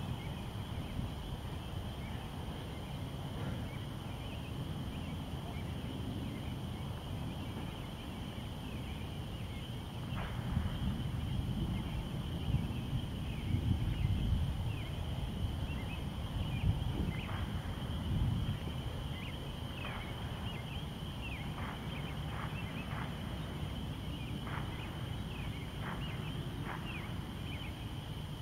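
Outdoor evening ambience: a steady high-pitched chorus of calling animals, with a run of short falling chirps through the second half, over a low rumble that swells in the middle.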